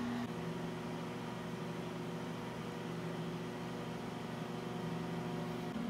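Steady hum of cooling fans in still-powered film projection equipment, with several steady tones over an even whir.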